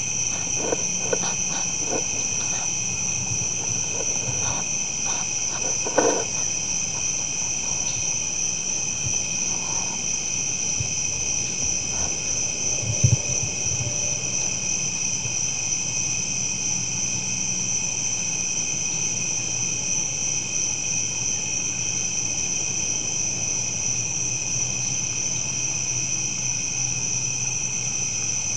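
Steady high-pitched chorus of night insects, over a faint low hum. A few sharp clicks sound in the first six seconds, and there is one louder knock about 13 seconds in.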